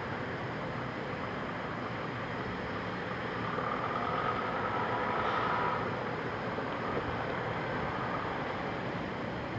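Steady machinery noise with a whine that swells and fades in the middle.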